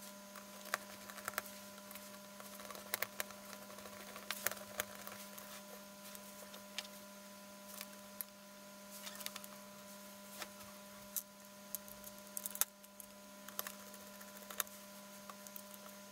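Irregular light clicks and taps of hands handling and seating a TV's small IR receiver board and its cable against the metal back of the LCD panel, over a steady faint hum.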